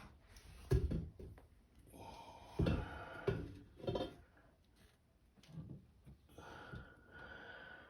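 Handling noise of washer-motor parts being fitted: a few sharp knocks about a second apart, with softer scraping and rustling between them.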